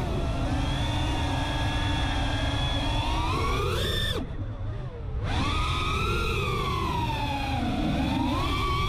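iFlight CineLog35 cinewhoop's motors and propellers whining, the pitch rising and falling with the throttle. About four seconds in, the whine climbs, then cuts away for about a second as the throttle drops, before sweeping back up.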